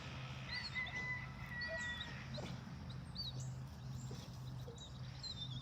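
An animal making thin, high-pitched chirps and a steady whine of about a second and a half, over a low hum.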